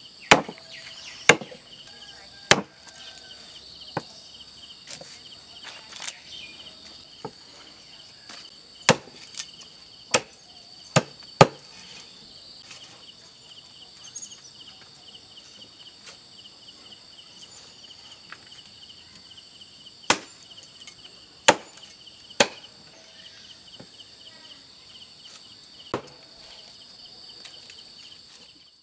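Large knife chopping roasted whole goat meat and bone on a wooden chopping block: sharp single chops at uneven intervals, many in the first dozen seconds and a few more after about twenty seconds. Insects chirp steadily and high throughout.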